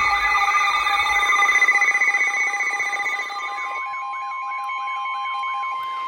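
Emergency alert tones ahead of a severe thunderstorm warning: a steady alert tone with a warbling, siren-like tone layered over it, about three warbles a second. Some of the layered tones drop out about three and a half seconds in, leaving the steady tone and the warble.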